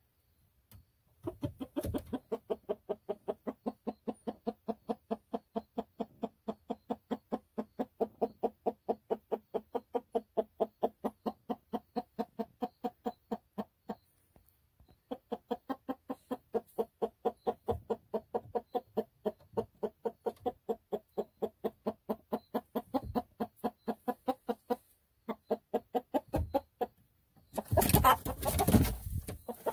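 Hen clucking in a steady, rapid run of about four clucks a second, with one short pause midway: the uneasy alarm clucking of a hen with a gopher snake right beside her. Near the end comes a loud burst of rustling.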